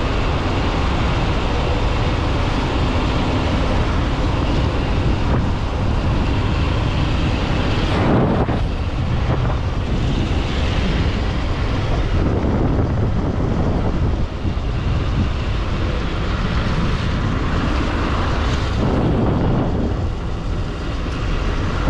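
A motorcycle running at road speed, with wind rushing steadily over the microphone and tyre noise from the wet tarmac.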